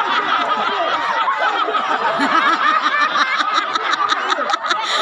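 Crowd of spectators laughing, shouting and chattering over one another, loud and unbroken.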